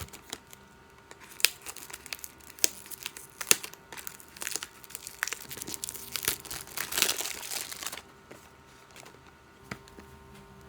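Product packaging crinkling and being torn open by hand, a busy run of sharp crackles and rustles that dies away about eight seconds in.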